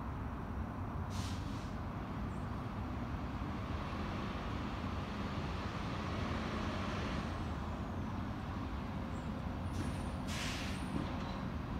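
Garbage truck engine running steadily, with short air-brake hisses about a second in and again near the end.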